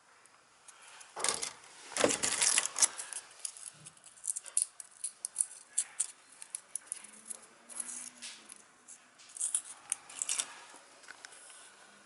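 Irregular clicks and light rattles of small hard objects being handled, densest from about one to three seconds in, then scattered single clicks.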